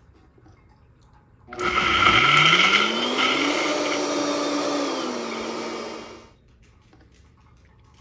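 Vitamix blender switched on, its motor rising in pitch for about two seconds as it spins up, then running steadily through a thick frozen smoothie mix before it is switched off about five seconds later. The pitch dips slightly just before it stops.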